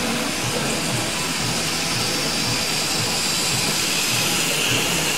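Tri-ang TT gauge model train running on its track, a steady whir and rumble heard against the steady hiss of a busy exhibition hall.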